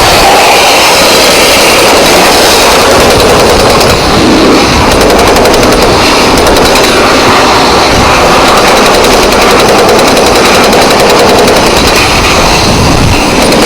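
Jackhammer breaking out concrete, a loud, continuous rapid hammering.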